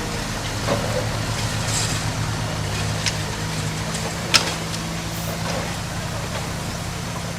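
Heavy diesel engine of an earth-moving machine running steadily, with a few sharp metallic clanks, the loudest about four seconds in.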